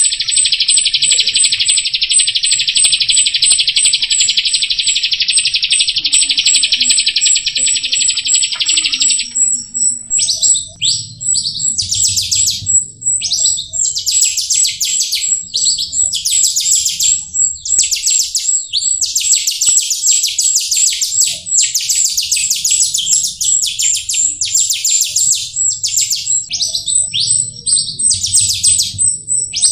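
Jalak rio starling singing: first a continuous buzzy trill for about nine seconds, then rapid chattering phrases broken by short pauses. Throughout there is a steady, high, pulsing chirp.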